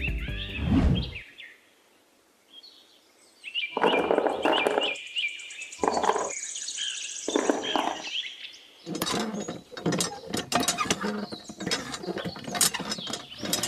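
Music fades out about a second in. It is followed by bouts of light clicking and clattering from small white pebbles being set into a miniature model pond, then a run of quick clicks as the handle of a toy hand pump is worked. Birds chirp in the background.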